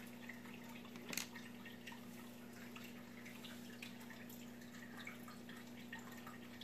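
Faint clicks and taps of small metal fishing-reel parts (gear, washers) being handled and set down on a cutting mat, with one sharper click about a second in. A steady low hum runs underneath.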